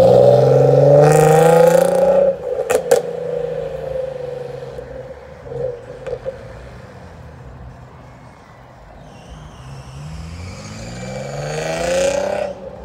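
Infiniti G35 coupe's V6 revving hard as the car accelerates away, its pitch climbing for about two seconds, then cutting off sharply with a few cracks from the exhaust and fading. Near the end a car accelerates back toward the microphone with its revs rising again.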